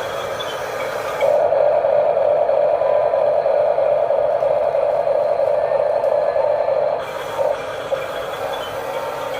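Small electric motors and gearboxes of toy RC construction machines running with a steady mechanical whir, louder from about a second in until near the end.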